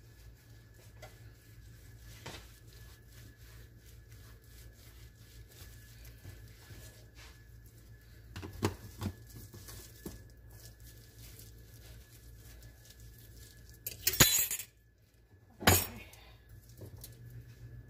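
Kitchen dishes and utensils clinking and clattering: a couple of light knocks about halfway, then two louder clatters near the end, over a low steady hum.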